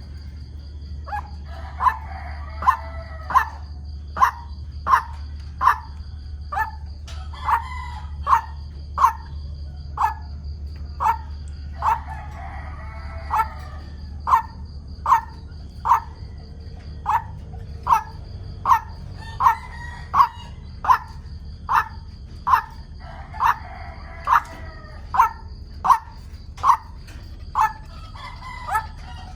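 White-breasted waterhen calling: a monotonous series of short, sharp notes repeated more than once a second, broken every few seconds by a longer, more complex croaking phrase.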